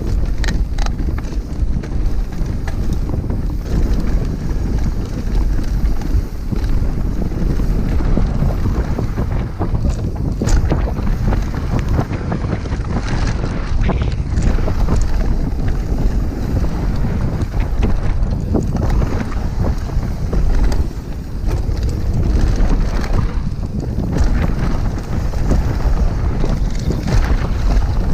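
Downhill mountain bike ridden fast on a dirt trail: steady wind rush on the microphone with tyre rumble, and frequent short rattles and clicks from the bike over the bumps.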